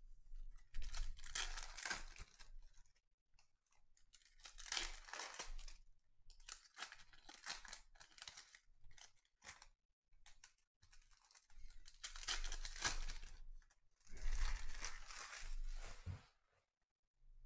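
Foil wrapper of a 2020-21 Panini Certified Basketball pack being torn open and crinkled by hand, in about five bursts of one to two seconds with short pauses between.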